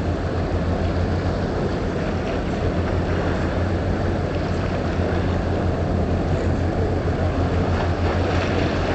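A motorboat's engine running steadily with a low hum, under a constant rush of wind and water.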